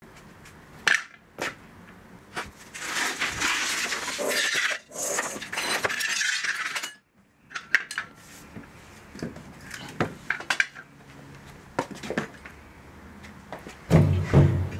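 Metallic clinks and clatter of objects being handled and set down, with a few seconds of dense rustling, scraping noise in the middle. Scattered lighter knocks follow, and a low hum comes in near the end.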